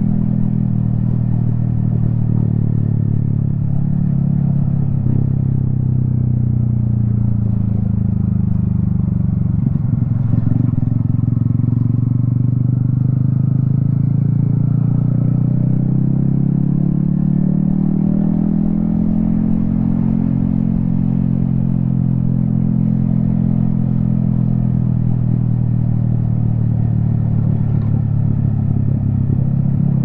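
Yamaha XSR155's single-cylinder engine running under way, heard from a helmet-mounted camera. The pitch sinks about ten seconds in, with a short knock at that point. It then climbs steadily for several seconds as the bike pulls and settles again for the rest.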